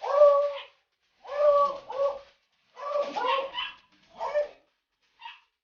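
A dog whining in a series of short, steady-pitched calls, four of about half a second each and a brief faint one near the end.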